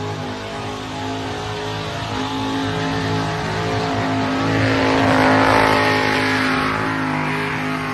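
A burnout car's engine held at high, steady revs while its spinning tyres pour out smoke, with a rushing tyre noise that builds to its loudest about five seconds in and then eases.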